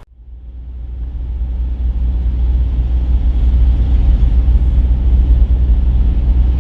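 Car interior rumble while driving: steady low engine and road noise heard from inside the cabin, fading in over the first couple of seconds.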